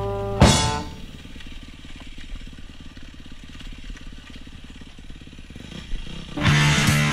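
Rock music ends on a loud crash about half a second in. A Yamaha dirt bike's engine then runs steadily for several seconds as the bike rides, and rock music comes back in near the end.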